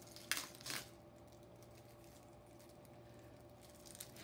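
Plastic wrap being torn and peeled off a stack of chalkboard discs: two short crinkling rips in the first second, then faint rustling of the plastic as it is pulled away.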